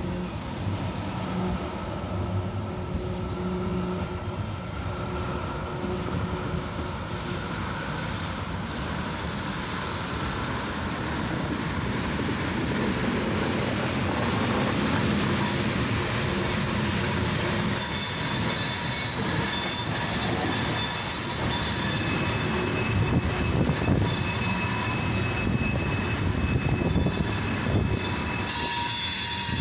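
Freight cars of a long CSX mixed freight train rolling past with a steady rumble of steel wheels on rail, growing louder about halfway through. From about two-thirds of the way in, high-pitched wheel squeal rings out over the rumble as the cars take the curve from the eastbound line onto the southbound main.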